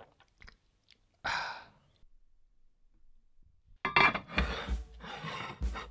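A short breathy sigh about a second in, after a sip of yerba mate. From about four seconds in, louder sound with low thuds sets in.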